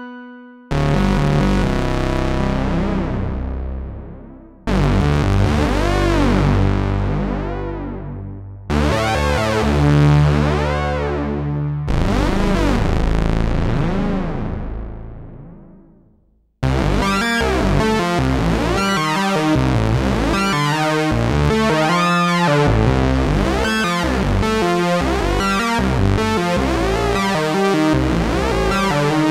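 Moog Matriarch analog synthesizer playing four long held chords, each bright at first and growing darker as it fades. About halfway it switches to a fast, continuous repeating sequenced pattern whose tone sweeps up and down.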